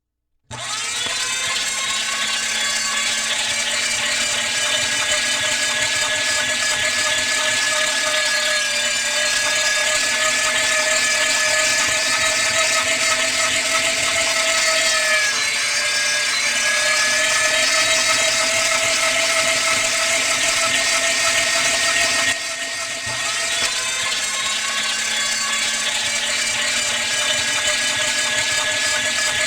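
Power drill spinning a drill bit: a steady whine with several pitched lines starting about half a second in. The pitch sags briefly about halfway through, and the sound drops off about 22 seconds in before picking up again a second later.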